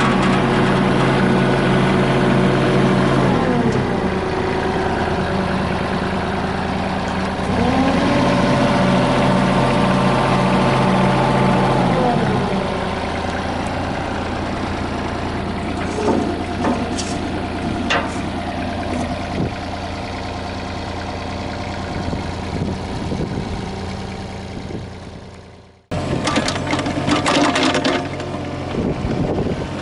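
Yanmar VIO20-1 mini excavator's diesel engine running, its pitch dropping about 3.5 s in, rising again near 7.5 s and dropping once more around 12 s, with a few sharp clicks in the middle. The sound fades out and then cuts back in about 26 s in, with the engine running again.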